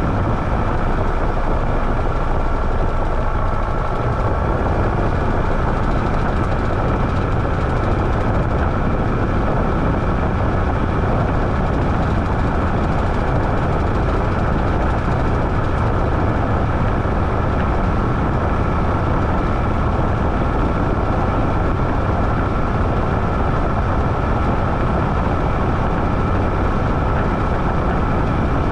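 Washing machine running: a steady low mechanical rumble with a faint constant whine over it.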